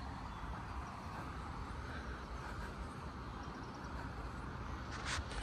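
Steady outdoor background noise with a low rumble, and a brief click near the end.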